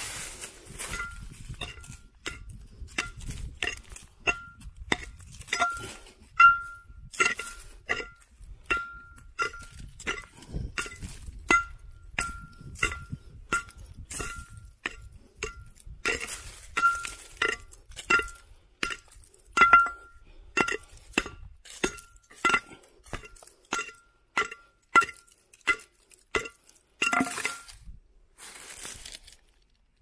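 Steel pickaxe striking rocky ground over and over, about one or two blows a second. Each blow gives a sharp clink with a short ring at the same pitch.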